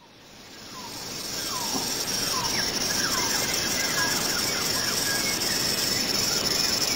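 Steady hissing background ambience that fades in over about two seconds and holds level, with a run of faint, short falling chirps in its first half. It cuts off abruptly near the end.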